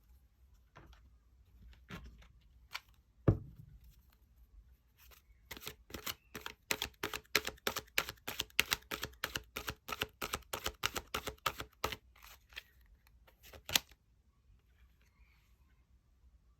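A tarot deck being shuffled by hand: a rapid run of card slaps, about four a second, for some six seconds. Before it comes a single louder knock, about three seconds in.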